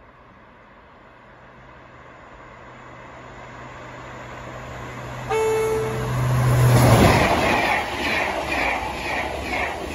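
TGV inOui double-deck high-speed train approaching and passing at speed, growing steadily louder. It gives a short horn blast about five seconds in and is loudest as it reaches the camera. The passing cars make a rhythmic beat two or three times a second.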